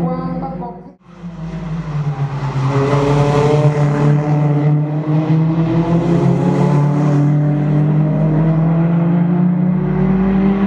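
Several Toyota Corolla Altis race cars' engines running hard together through a corner, their pitch slowly rising as they accelerate. The sound cuts out briefly about a second in, then returns.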